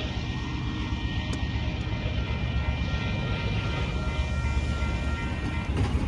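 Diesel locomotive engines running under power: a loud, steady low rumble with faint steady whining tones above it, which fade out near the end.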